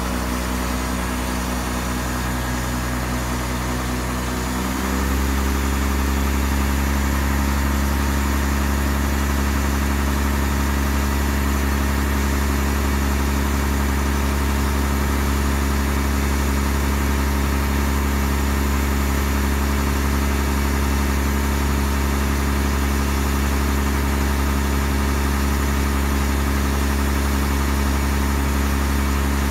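Scania LA 82 hook-lift truck's diesel engine running steadily. About five seconds in it steps up to a slightly higher, louder steady speed, driving the hydraulics as the hook-lift arm raises.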